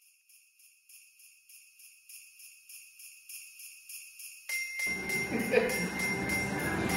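Sleigh bells shaken in a steady rhythm, growing louder. About four and a half seconds in, fuller background music comes in with them.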